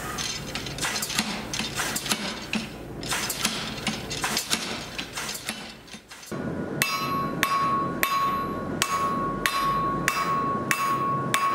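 Chambersburg power hammer striking hot Damascus steel in a clapper die, a quick irregular run of blows. About six seconds in this gives way to a hand hammer striking the hot steel on an anvil, about one and a half blows a second, each blow leaving the anvil ringing.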